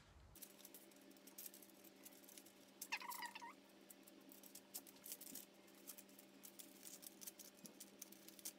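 Near silence: faint rustling and tapping of hands pressing cookie dough flat on parchment paper over a low steady hum, with one brief squeak about three seconds in.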